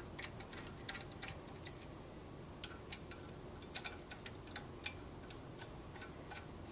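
Irregular light metallic clicks of a T-handle hex wrench working the QLS locating bolts that hold a flange riser to a steel base plate, with a couple of sharper clicks about three and four seconds in.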